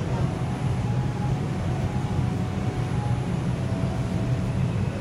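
New York City subway car running through a tunnel, heard from inside the car: a steady low rumble with a faint steady whine above it.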